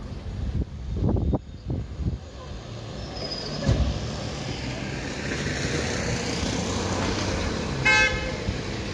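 Street traffic, with a vehicle's rushing tyre and engine noise building and holding steady. There are low wind buffets on the microphone about a second in, and a brief pitched beep near the end.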